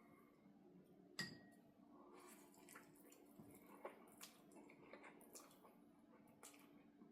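Faint eating sounds: soft wet chewing and small clicks of a utensil on a dish, with one sharper clink about a second in, over a steady low hum.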